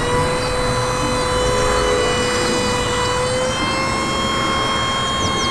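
Truck-mounted aerial work platform running, a steady machine whine over engine noise as its boom moves; the whine steps up slightly in pitch about halfway. Birds chirp near the end.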